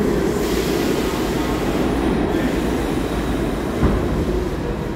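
New York City subway train rumbling steadily in an underground station. A high hiss sits over the rumble for the first two seconds or so.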